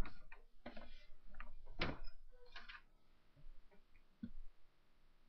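A few irregular clicks and knocks, the loudest at the very start and about two seconds in, with fainter ones around four seconds in.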